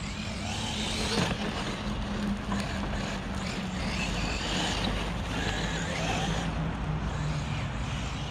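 Electric RC monster truck (Traxxas Maxx 4S with a Surpass 4076 2200 kV brushless motor) driving across grass and sand. Its motor and drivetrain whine up and down with the throttle over a steady rushing noise.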